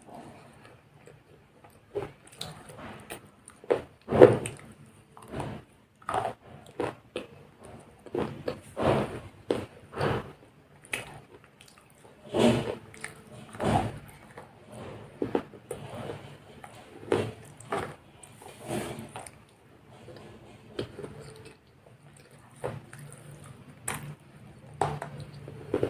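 Biting and chewing KitKat chocolate wafer bars close to the microphone: irregular bites, each followed by chewing, over a faint steady low hum.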